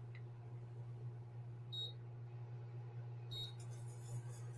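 A faint steady low hum, with two short high electronic beeps, one about two seconds in and another about a second and a half later.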